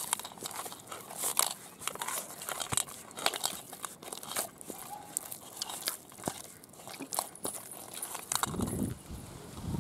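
A hand kneading soft, sticky maida dough in a steel bowl: irregular wet squelches and slaps as the dough is pressed and folded.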